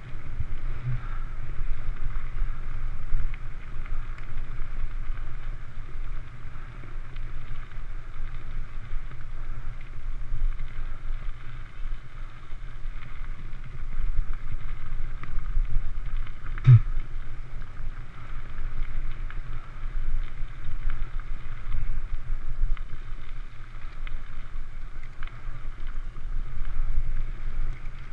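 Mountain bike rolling fast over a gravel track: steady tyre noise on loose gravel with wind rumbling on the action camera's microphone, and one sharp knock from a bump about two-thirds of the way through.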